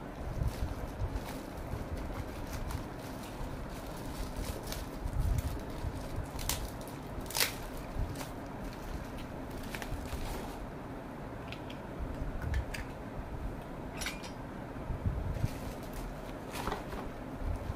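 Clear plastic wrapping crinkling and rustling as it is handled and pulled off a small glass cup, with scattered sharp crackles and clicks.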